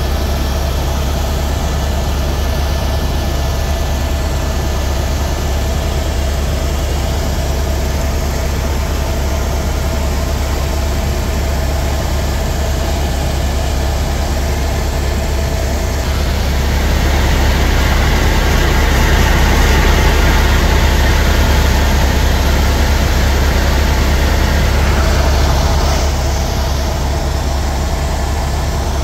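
Helicopter in flight heard from inside the cabin: a loud, steady drone of turbine engine and rotor. It grows louder and brighter for about ten seconds past the middle, then settles back.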